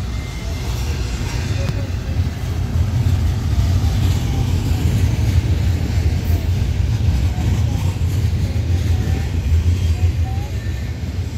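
Double-stack intermodal freight train's container well cars rolling past: a steady low rumble of steel wheels on rail, growing a little louder a few seconds in and easing near the end.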